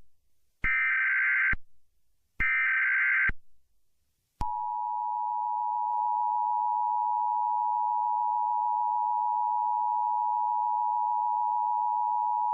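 Emergency Alert System tones: two roughly one-second bursts of shrill digital SAME header data about a second apart, then the steady two-tone EAS attention signal (853 and 960 Hz) starting with a click and held for about eight seconds.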